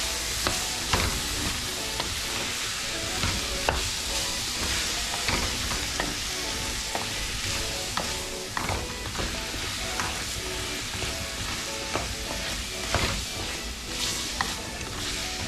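Cubed potatoes being stirred with a wooden spoon in an aluminium pot of sizzling onions, scallions and herbs: a steady frying sizzle with irregular knocks and scrapes of the spoon against the pot and the potato chunks.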